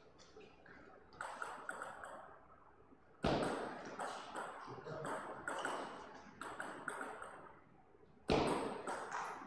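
Table tennis ball clicking off bats and the table in a rally, in a reverberant hall. Two sudden louder thumps stand out, about three seconds in and near the end.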